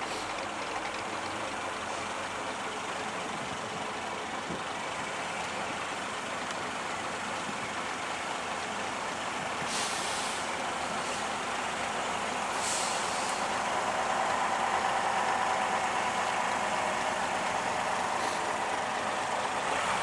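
Double-decker bus engine running as the bus drives slowly past, growing louder as it draws near and loudest about three-quarters of the way through. Short hisses of air sound twice, about halfway in.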